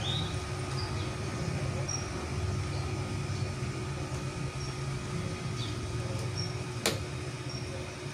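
Hands fitting a stepper motor's cable connector onto its socket, with one sharp click about seven seconds in as it goes home, over a steady low room hum.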